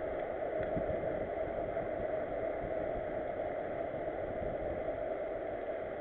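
Steady rushing noise of a mountain bike ridden along a paved path: wind over the bike-mounted camera's microphone and tyres rolling on tarmac.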